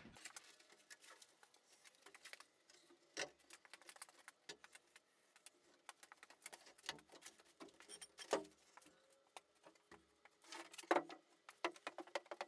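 Faint footsteps with scattered light clicks and taps and a few dull thumps, from a person walking around and onto a plywood bed platform.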